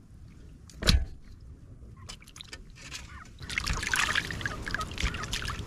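Water sloshing and splashing in a metal basin as raw fish pieces are washed by hand and lifted out, the splashing heaviest from about three and a half seconds in. A single sharp knock about a second in.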